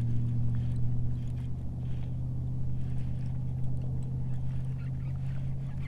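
Steady low hum of a small motor on a kayak, with faint light ticks and splashes over it.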